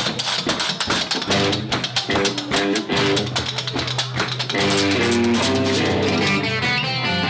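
Live bluegrass-rock band playing: a washboard is scraped and tapped in a fast rhythm over guitar, upright bass and drums. After about four and a half seconds the plucked guitar and banjo notes come forward over the percussion.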